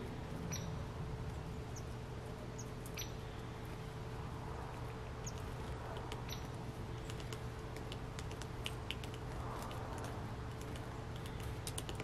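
Short, sharp high chip calls from small birds, scattered through the first half and bunching into quick runs of clicks in the second half, over a steady low hum.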